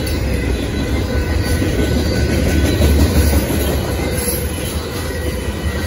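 Freight train of boxcars and tank cars rolling past at close range: a steady low rumble of steel wheels on the rails.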